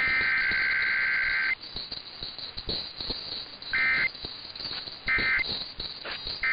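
Emergency Alert System digital data bursts, a harsh two-tone warble: the last long header burst for about a second and a half, then after a two-second pause three short end-of-message bursts about 1.4 s apart. There are crackling clicks behind them.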